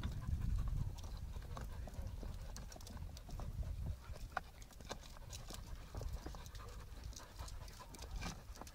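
Podenco canario hunting dogs scrambling and sniffing over loose rocks: scattered clicks and knocks of paws and shifting stones, over a low rumble that is heaviest in the first second.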